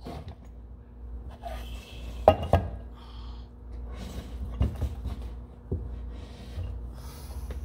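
Metal parts of a Peerless 2300 transaxle knocking and clinking as the differential and axle shaft are set down into the gear case, a few separate knocks, the loudest about two and a half seconds in.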